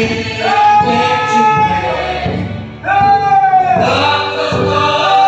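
Congregation singing a worship song together, men's and women's voices holding long notes that swoop up into each phrase, with a drum beating steadily underneath.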